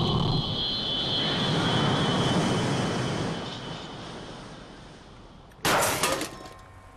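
Cartoon explosion sound effect: the rumble of a big blast fading away over about five seconds. Then comes a sudden crash near the end as the pieces of a destroyed robot hit the ground.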